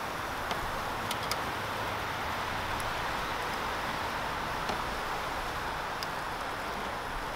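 Ground-beef koobideh kebabs on wide metal skewers sizzling over a charcoal grill: a steady hiss with a few small crackling pops.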